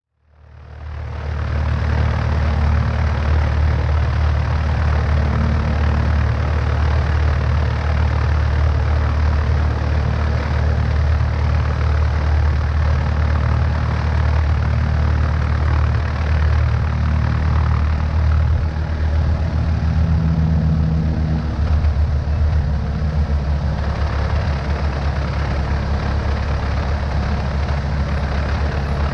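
Cessna 152's four-cylinder Lycoming piston engine and propeller running steadily at low power, recorded from outside on the wing. The sound fades in over the first second.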